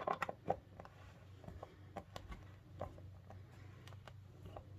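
Faint scattered clicks and small scrapes of a screw being tightened into a curtain-rod bracket on the wall, a few sharper ones in the first half second, over a steady low hum.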